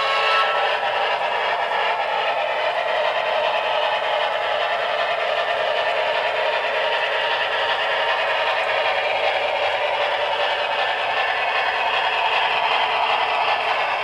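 Brass model Milwaukee Road F7 4-6-4 steam locomotive and its passenger cars rolling along the layout track: a steady clatter and whir of small wheels on rail and the running gear.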